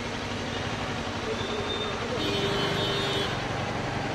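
Vehicle engine and street traffic noise, steady throughout, with a steady tone sounding for about a second just past the middle.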